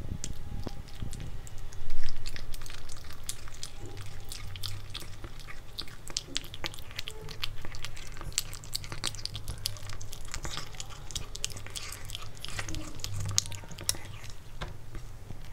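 A kitten chewing and biting pieces of raw pork: a quick, uneven run of small smacking clicks, with a louder knock about two seconds in.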